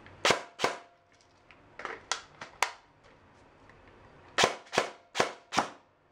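Airsoft M4 rifle firing single semi-automatic shots, about ten sharp cracks in three irregular groups, some weaker than others. The magazine of unwashed BBs is not feeding every shot.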